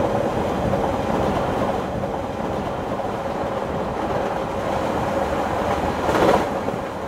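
A passenger train running, heard from inside the carriage: steady running noise with a constant hum, briefly swelling louder just after six seconds.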